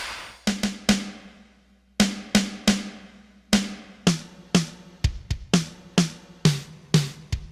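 Alesis HR16 drum machine with HR16-B wave ROMs playing sampled drums: a few hits fade out, then about two seconds in a steady beat starts, with tuned snare and tom hits about every half second and an occasional deep bass drum.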